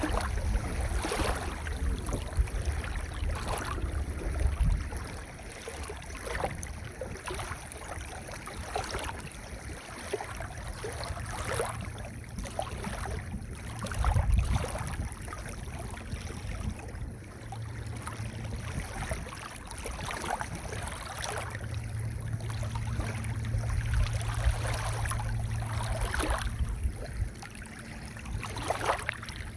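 Gentle waves washing onto a pebble beach: a continuous surf wash with a low rumble that swells and eases several times, and short crackling rattles of pebbles.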